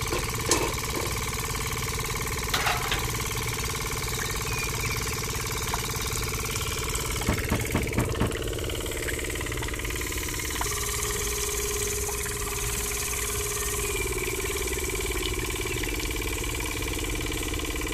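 The small motor of a miniature model rice mill running steadily with an even mechanical hum, the mill turned by belts. A few light knocks sound over it, and several come in quick succession about halfway through.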